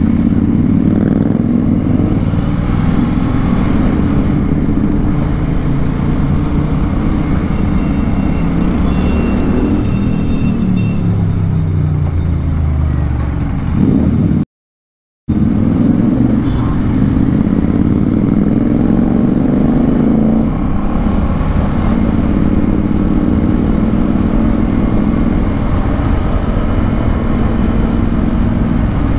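KTM Duke 390's single-cylinder engine running in low gears at town speeds. Its pitch falls as the bike slows about halfway through, the sound cuts out completely for under a second, and then the engine runs on again.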